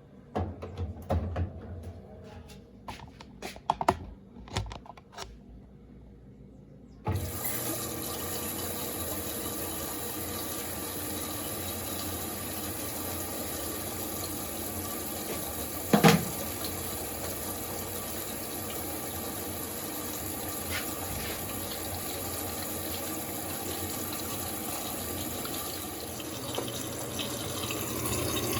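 A few clicks and knocks, then about seven seconds in water suddenly starts rushing into the Electrolux LAC16 top-loading washer: the inlet valve opens and the drum fills with a steady rush. A single sharp knock sounds about sixteen seconds in.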